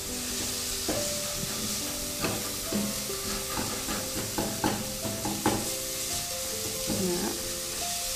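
Chopped onions, garlic-ginger paste and cumin seeds sizzling in oil in a nonstick pot, stirred with a wooden spatula that scrapes and knocks against the pot several times, the knocks clustering in the middle.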